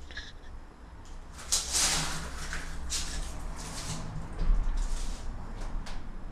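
A person moving about inside an empty metal van body: a run of scuffing and rustling noises, with a dull low thump about four and a half seconds in.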